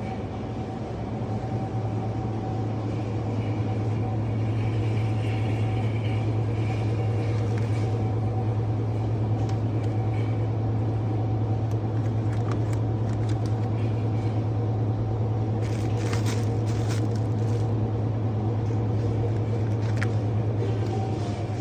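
A steady low machine hum with a fainter higher tone over it, and a few light clicks and knocks about two-thirds of the way through.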